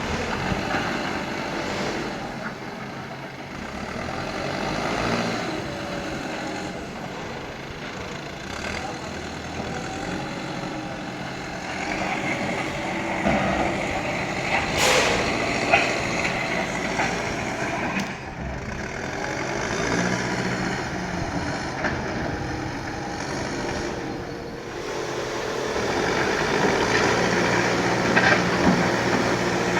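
Diesel engine of a JCB earthmoving machine running under working load, its sound swelling and easing as the machine works. There is a short sharp noise about halfway through.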